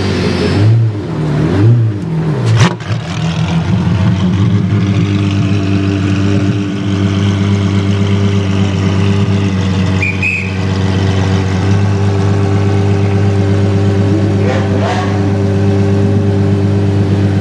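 Apollo Intensa Emozione's V12 engine blipped up and down a few times, with a sharp crack about two and a half seconds in, then settling into a steady idle.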